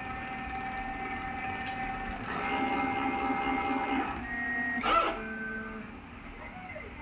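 Unloaded stepper motors of a 4-axis CNC router controller running through a toolpath, whining in steady tones that shift in pitch as the axes change speed. The whine grows louder and fuller a little after two seconds in, and there is a quick up-and-down sweep about five seconds in.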